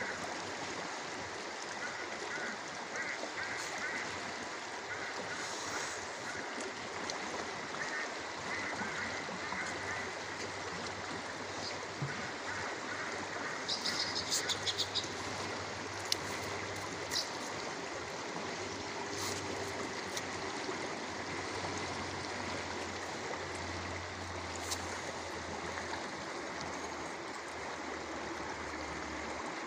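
Steady rushing of a flowing river, with a short burst of plastic-bag crinkling about halfway through.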